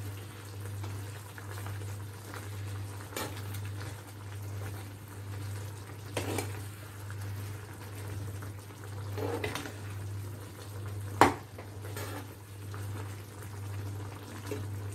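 Creamy chicken curry bubbling in a pan on high heat while a metal spatula stirs it, scraping against the pan every few seconds, with one sharper clink about eleven seconds in. A steady low hum runs underneath.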